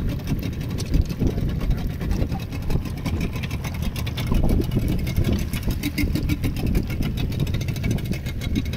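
Fishing boat's engine running steadily at idle.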